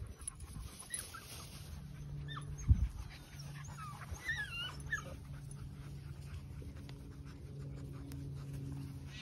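German shorthaired pointer puppies at play, giving short, wavering high-pitched whines and squeaks around the middle. A loud thump comes a little under three seconds in, and a steady low hum runs under the second part.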